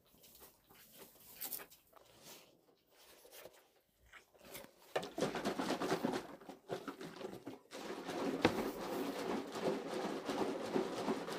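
Plastic calf bottle of mixed colostrum being shaken, liquid sloshing, starting about five seconds in, to dissolve leftover powder.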